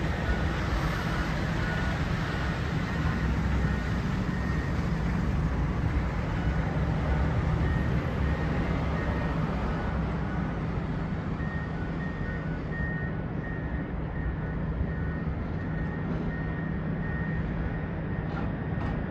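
Steady low rumble of sawmill and log-yard heavy machinery, with a faint, evenly spaced high beeping on and off, most regular in the second half.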